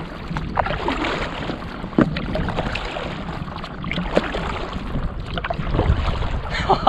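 Stand-up paddleboard paddle strokes, the blade dipping and pulling through the water with a splash about every two seconds.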